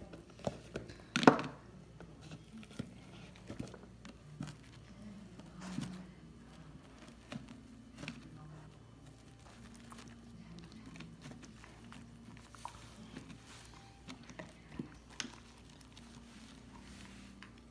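Samoyed dog eating soft cake off a paper towel: scattered small clicks, taps and mouth sounds, with one sharper knock about a second in.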